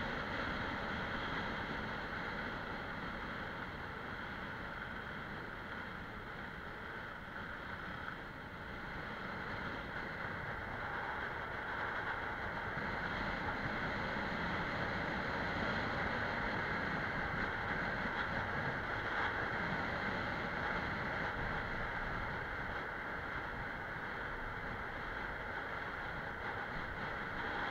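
Wind rushing over the microphone and skis hissing on groomed snow during a straight high-speed ski descent, close to 100 km/h. It is a steady noisy rush that grows louder about a third of the way in.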